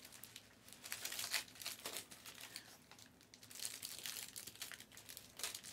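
Foil trading-card pack wrappers crinkling and rustling as the packs are handled and opened, in irregular faint crackles.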